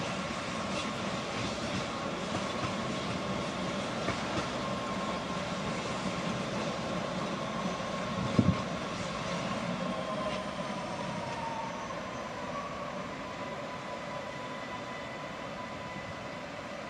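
A train running on rails, with a high whine that drops in pitch a little past halfway through. A single sharp knock stands out about eight and a half seconds in.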